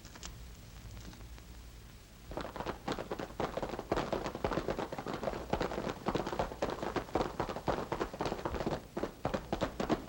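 Galloping horse hoofbeats, as a radio drama sound effect: a fast, uneven run of knocks that starts about two seconds in and keeps going, over a faint low hum.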